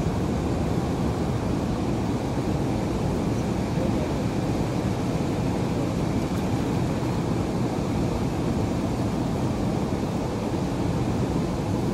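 Steady low rushing noise of churning river water below a concrete dam, mixed with wind buffeting the microphone.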